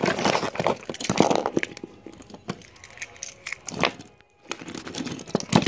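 Clicking, rattling and rustling as plastic toy trains and pieces are picked up and moved about by hand. The sound is busiest in the first two seconds and again near the end, with a short pause a little past the middle.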